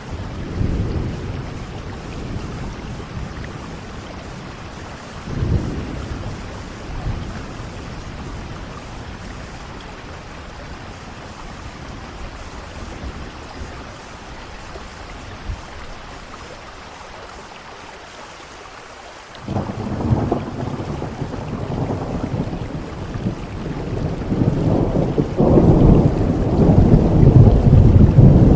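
Thunderstorm: steady heavy rain with rolling thunder. Low rumbles sound early on and fade. About two-thirds of the way through, a sudden thunderclap breaks in and builds into a long, loud rumble, the loudest part, near the end.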